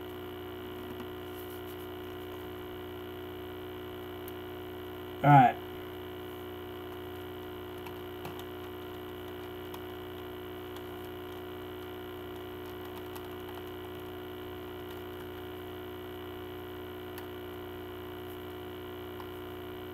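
Steady electrical mains hum with many overtones, with a few faint clicks near the middle.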